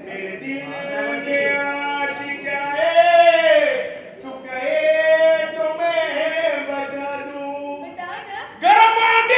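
A voice singing long, drawn-out held notes, sliding down in pitch about three seconds in, then holding another long note. A louder voice cuts in near the end.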